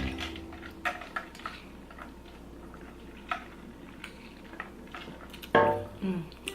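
Cutlery clinking against a dish a few times while eating, then a short, loud burp about five and a half seconds in.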